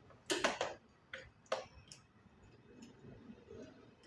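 A few sharp clicks and light taps from small metal hardware being handled while fitting a wardrobe door lock: a quick cluster in the first second, two more soon after, then fainter ticks.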